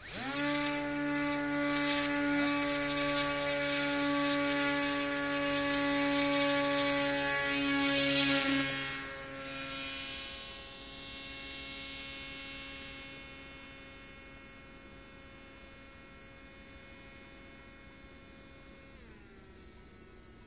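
Electric motor and propeller of a 1.8 m fixed-wing model aircraft (Maja) spinning up to a steady high whine while held for a hand launch. About nine seconds in, the aircraft is thrown and the whine drops in level and slightly in pitch as it flies away, fading steadily. Near the end the motor throttles back and the pitch falls.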